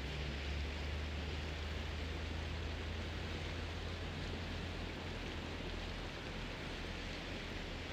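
Steady outdoor background noise: a constant hiss with a low rumble underneath and no distinct events.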